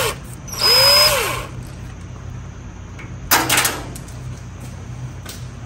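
Cordless power tool on a long socket extension spinning out a transmission solenoid-pack bolt: one run of about a second, starting about half a second in, its motor pitch rising and then falling. A short clatter follows a little past three seconds in.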